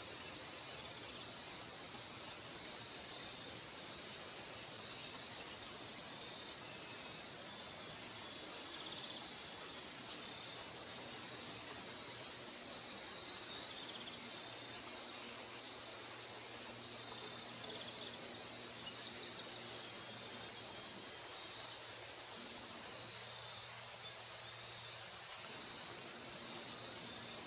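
Chorus of insects, likely crickets, chirping in an even, pulsing high trill over a steady background hiss.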